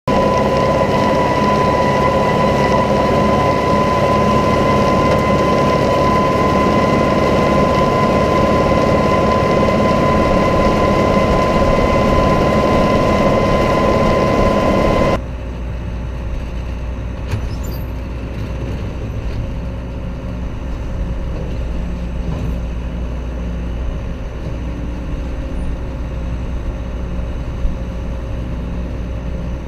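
Tractor running with hay equipment, a steady high whine over the engine. About fifteen seconds in it cuts to a quieter, lower engine hum.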